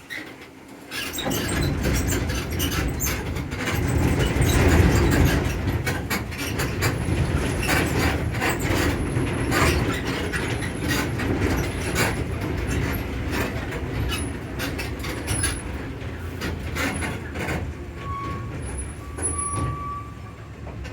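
Zoomobile tour tram running over cattle grates, its low rumble mixed with dense rattling and clattering of the cars. A few brief squeaks come near the end.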